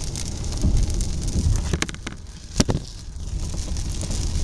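Heavy rain on a moving car heard from inside the cabin: a steady hiss of rain and tyres on the wet highway over a low road rumble. A couple of sharp knocks come near the middle, the second the loudest.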